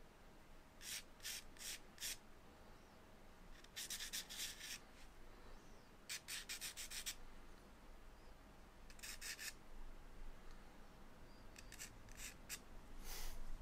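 Faint scratching of a soft charcoal stick drawn across textured drawing paper as a sketch's outline is blocked in. It comes in short runs of quick strokes, a few at a time, with pauses between.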